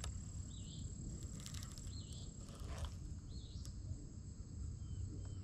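Faint outdoor ambience: a steady high insect trill, three short chirps about a second and a half apart, and a low rumble underneath, with a few faint clicks as a baitcasting reel is cranked in.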